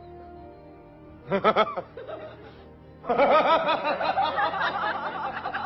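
Laughter sound effect over faint background music: a short snicker about a second and a half in, then a longer run of rapid, repeated laughter from about three seconds in.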